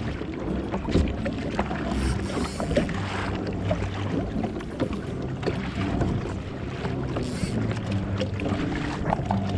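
Ocean water splashing and slapping against a kayak hull in a choppy swell, many small sharp slaps over a rough wash of water and wind. Underneath runs a background music track of sustained low notes.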